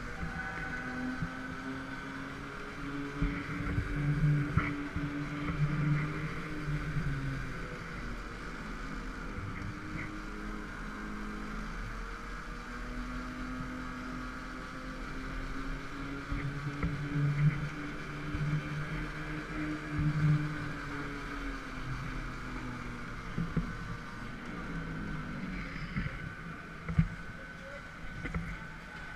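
Go-kart running at speed, its motor rising and falling in pitch twice as it speeds up and eases off, with a few brief knocks.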